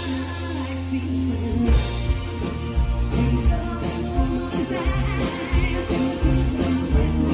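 Live country band playing: drum kit, electric and acoustic guitars, bass guitar, keyboard and fiddle, with a woman singing lead.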